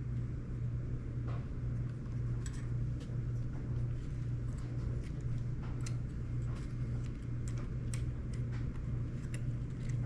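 Small, scattered clicks and taps of hands working a replacement rubber belt into a cassette deck's tape mechanism, over a steady low hum.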